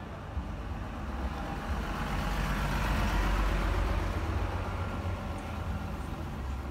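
A truck drives past close by, its engine and tyre noise swelling to a peak midway and then fading, with a car following behind it.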